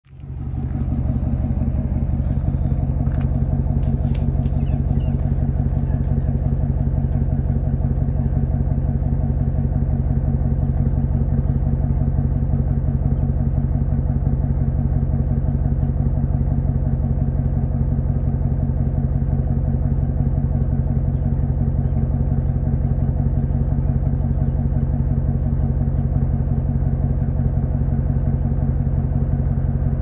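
A vehicle engine idling steadily with an even, fast pulse, with a few faint clicks in the first few seconds.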